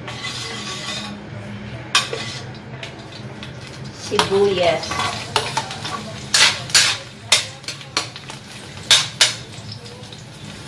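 Metal spatula scraping and tapping against a metal wok as diced onions are stirred in hot oil, over a low frying sizzle. The sharp scrapes come one after another through the second half, several a second at times.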